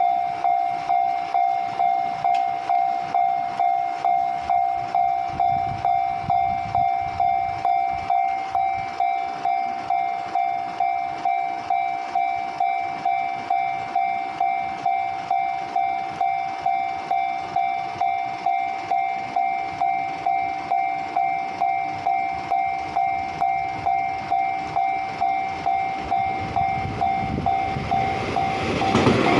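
Level-crossing warning bell ringing at about two strokes a second, one steady pitch. Near the end the rushing noise of an approaching train swells in under it.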